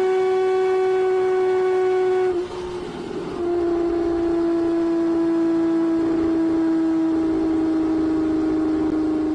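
Honda CBX's air-cooled inline six-cylinder engine running at high, steady revs with a smooth, high-pitched note. About two and a half seconds in the note dips briefly, then holds again slightly lower and sinks slowly.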